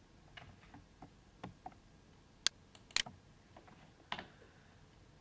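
Quiet, irregular clicks of a computer mouse and keyboard, about a dozen scattered through, the sharpest two and a half to three seconds in.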